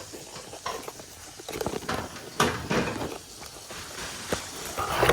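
Cardboard box being opened by hand: irregular scrapes, rustles and knocks from the box and its packaging.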